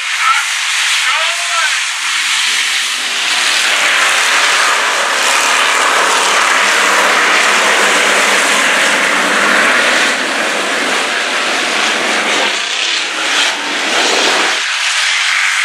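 Engines of a field of hobby stock race cars running hard on a dirt oval, blending into one loud, steady drone.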